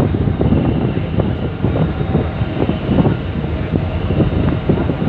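Steady low rumble of a cargo ship's engines, with uneven gusts of wind on the microphone on top.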